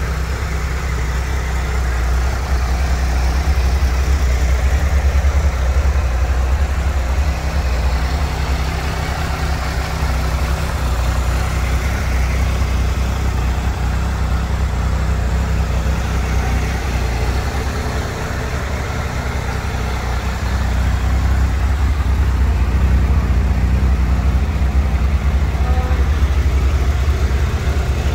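Triumph Tiger 1200 XRT's three-cylinder engine idling steadily.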